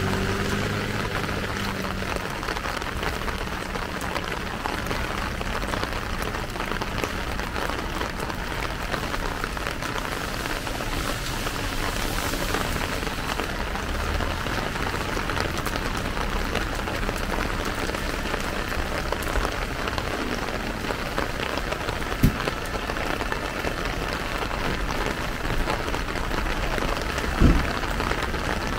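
Steady rain falling on a plastic umbrella overhead. A vehicle engine hum fades away in the first couple of seconds, and two sharp knocks sound near the end, the second the loudest.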